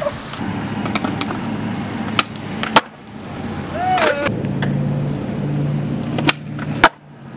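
Skateboard wheels rolling on concrete, a steady low rumble broken by a few sharp clacks of the board. A brief shout comes about four seconds in.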